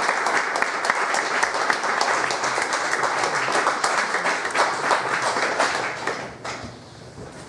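Audience applauding, many hands clapping together, dying away about six seconds in.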